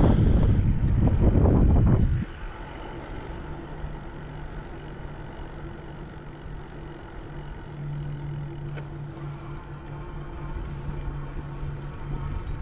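Loud low rumble of wind and bumps on the microphone while riding a bicycle, cutting off suddenly about two seconds in. After that a quieter steady low hum goes on.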